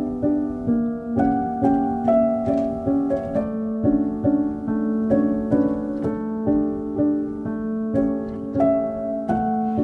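Instrumental background music: plucked notes in a gentle repeating figure over held chords.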